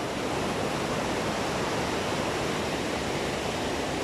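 River rapids rushing: a steady, even roar of white water.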